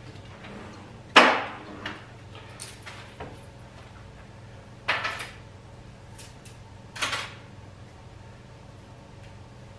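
Kitchen clatter as things are handled and put away: three sharp knocks, about a second, five seconds and seven seconds in, each ringing briefly, with a few lighter taps between them.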